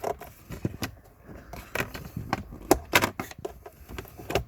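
Plastic pollen filter cover under a car's dashboard being handled and moved aside after its clips are released: a string of irregular sharp plastic clicks and knocks.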